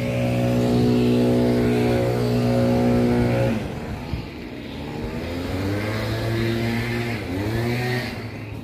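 An engine runs at a steady pitch, then drops about a third of the way in and climbs in pitch twice, with a brief dip before the second climb.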